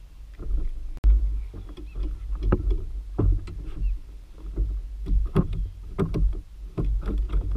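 Repeated knocks and thumps against the plastic hull of a Pelican Bass Raider 10E fishing kayak as gear is handled, over a steady low rumble.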